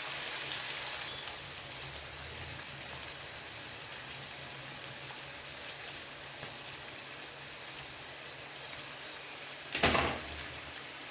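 Onions and chopped vegetables frying gently in oil in a steel kadhai over a gas flame: a steady soft sizzle. Near the end comes a brief loud knock.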